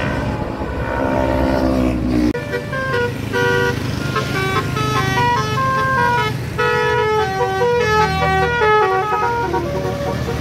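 Bus 'telolet' horn of the Basuri type, a multi-tone horn, playing a quick tune of stepped notes from about two seconds in until near the end. Under it runs the bus engine.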